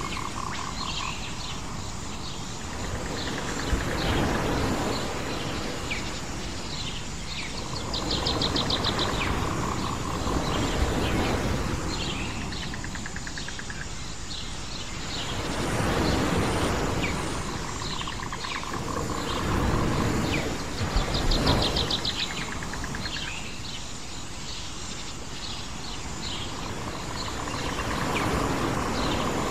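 Island nature ambience: a noisy wash that swells and ebbs every few seconds like surf, with birds chirping throughout and two short rapid trills.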